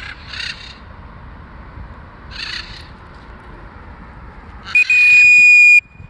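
Two short, harsh bird squawks, then near the end a loud, steady, high-pitched whistle tone lasting about a second that cuts off suddenly.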